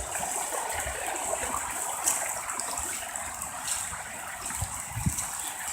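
Floodwater rushing along a street, a steady gushing flow.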